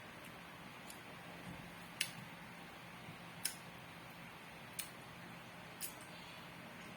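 Cutlery clicking against a plate during a meal: four sharp, short clicks spaced about a second or more apart, with a faint steady hum beneath.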